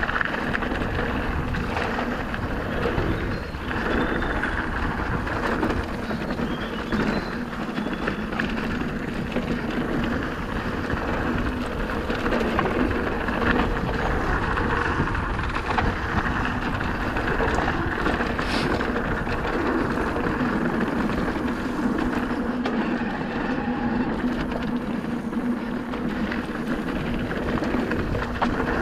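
Merida eOne-Sixty electric mountain bike riding fast downhill on a gravel trail: a steady rush of tyre and wind noise with frequent small knocks and rattles from the bike over the stones.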